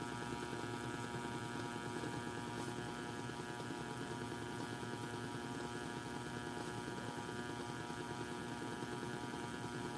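Steady electrical hum and hiss from a small audio amplifier and its speaker, several fixed tones held without change: background noise that the owner suspects comes from the amplifier.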